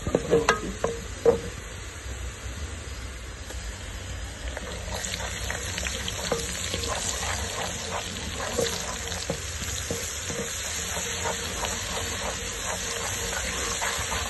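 Chopped onions sizzling in oil in an aluminium pot while a wooden spatula stirs them, knocking and scraping against the pot. A few sharp knocks come in the first second and a half, and the sizzle grows louder from about halfway through.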